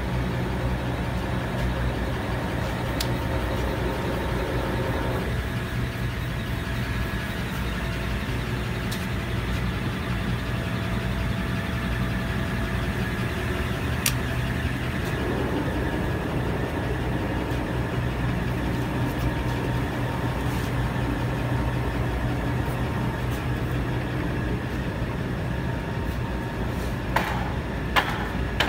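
Large POREBA heavy engine lathe running: a steady low mechanical hum from its motor and gearing. Near the end come a few sharp clicks.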